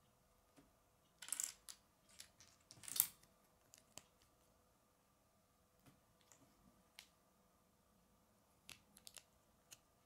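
Small plastic Lego bricks clicking and clacking as they are handled and pressed together, in scattered bunches of sharp clicks, the loudest about three seconds in.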